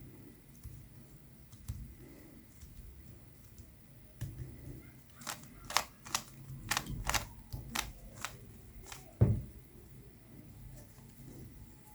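Plastic Rubik's Cube being turned by hand: a quick run of about ten sharp clacks as the layers are twisted, then one louder low thump a little after nine seconds.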